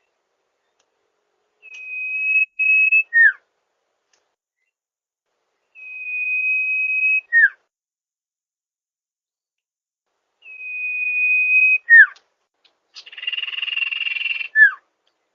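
Sirpu (sirdung) bird calling in four phrases a few seconds apart. Each phrase is a long, steady, high whistle ending in a quick downward-sliding note. The second phrase's whistle is broken in two, and the last one is harsher and buzzier.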